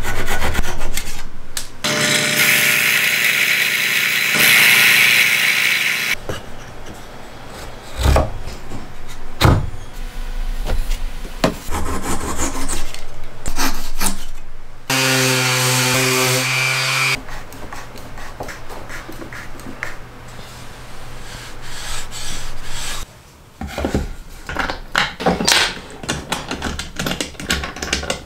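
Flush-cut hand saw trimming wooden dowels, with short irregular rasping strokes and knocks on the wood. Twice a small motorised tool runs steadily: for about four seconds starting two seconds in, and for about two seconds around the middle, the second time with a steady hum.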